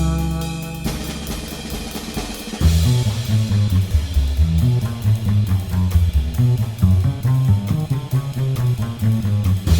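Background music: a rock-style instrumental with drums, bass and guitar; held notes give way about two and a half seconds in to a driving bass line and steady beat.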